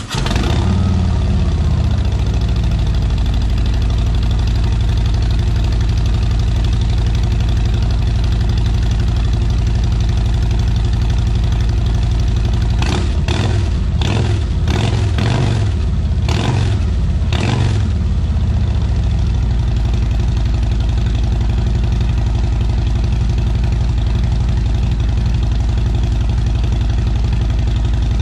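2021 Harley-Davidson CVO Street Glide's Milwaukee-Eight 117 V-twin with 4.5-inch Shark Road exhaust tips (factory headers and catalytic converter kept), idling just after a cold start. About halfway through it is given several quick throttle blips over some five seconds, then settles back to a steady idle.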